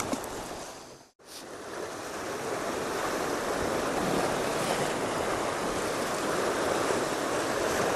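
Sea surf washing against a rocky shore, a steady rushing wash with wind on the microphone. The sound drops out for a moment about a second in, then comes back steady.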